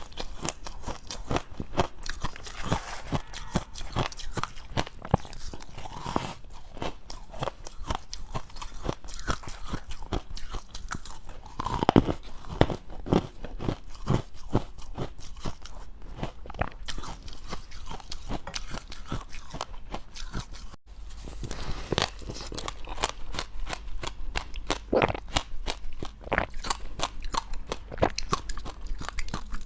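Close-miked biting and chewing of dry, powdery freezer-frost ice: a fast, unbroken run of crisp crunches, with a brief break about two-thirds of the way through.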